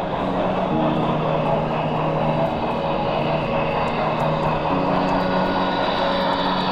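HO-scale model train running along the track toward the camera, a steady mechanical running noise from the locomotive and cars, with soft piano music underneath.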